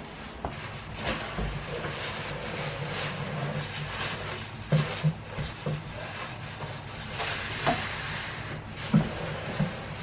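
Plastic wrapping rustling and cardboard scraping as a boxed microwave oven is slid out of its carton, with a few light knocks.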